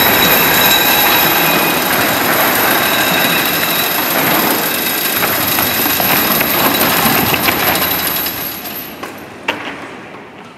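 Heavy steel chains rattling and grinding as they drag a jointed fibreglass animatronic figure across the floor and hoist it up: a loud, continuous metallic clatter. It fades out about eight seconds in, leaving a couple of single clanks.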